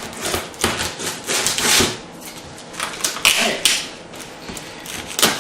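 A saw cutting through packing tape and cardboard on a large box, in a few uneven rasping strokes.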